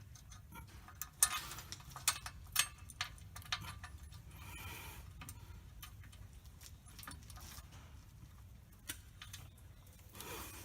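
Irregular sharp metallic clicks and clinks of hand tools and metal parts being handled during clutch work on a truck, the loudest about a second in and two more shortly after, over a low steady hum.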